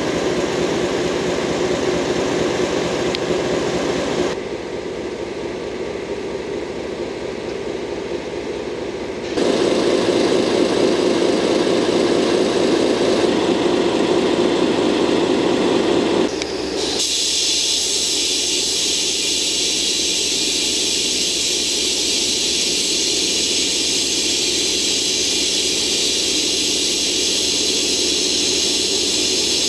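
DE10 diesel-hydraulic locomotive's engine idling steadily. The sound changes abruptly a few times, and in the later part a steady high hiss sits over the engine.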